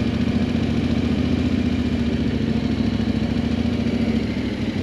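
Yamaha Ténéré 700 parallel-twin motorcycle engine running steadily at low speed, heard from on the bike.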